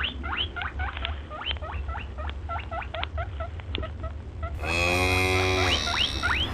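Small animal, given as a rabbit, making a rapid series of short, high, rising squeaks, about four or five a second, over a low rumble. Near the end a lower, drawn-out call with many evenly spaced tones comes in under a few more squeaks.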